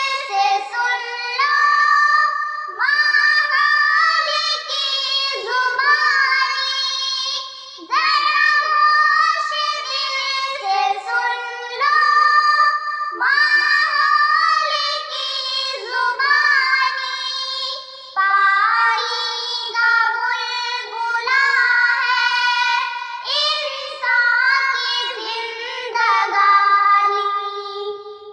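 Two young girls singing an Urdu nazm together, phrase after phrase, with no instruments.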